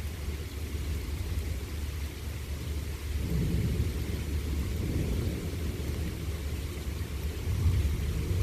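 Thunder rumbling low over a steady hiss of rain, swelling about three seconds in and again near the end.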